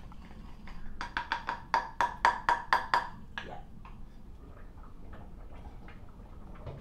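Wooden pepper mill being twisted by hand, giving a quick run of ratcheting clicks, about six a second, for roughly two seconds.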